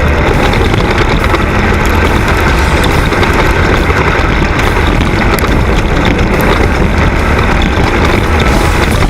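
Racing snowmobile engines running hard, a loud steady mechanical drone.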